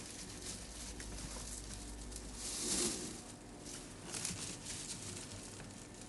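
Faint rustling and handling noise, louder for a moment about two and a half seconds in, over a low steady hum that stops at about the same time.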